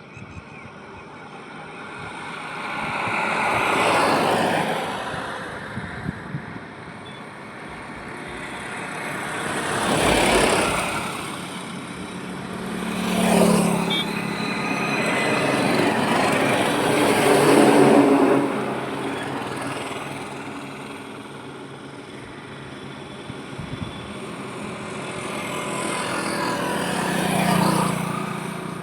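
Road traffic passing one vehicle after another, each pass rising and fading away; about five main passes, the louder ones carrying a steady engine hum.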